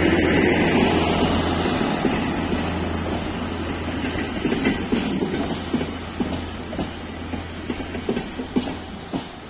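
Passenger train coaches rolling past on the rails, wheels clicking over the rail joints. The rolling noise fades steadily as the coaches move away, leaving separate clacks in the second half.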